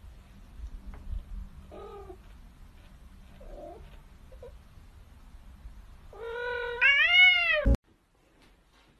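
Kitten meowing: a few faint short mews, then one long loud meow about six seconds in that climbs, arches and falls in pitch and cuts off abruptly.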